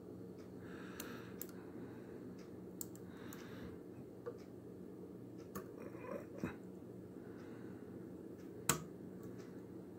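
Lock pick and tension wrench working the pins of a pin-tumbler challenge lock: faint, scattered small clicks, with one sharper click near the end, over a low steady background hum.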